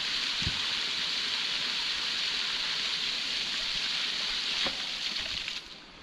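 Water gushing and spraying out of the base of a hydraulic ram pump and splashing on wet concrete, a steady hiss with a couple of dull knocks. The rush cuts off suddenly near the end.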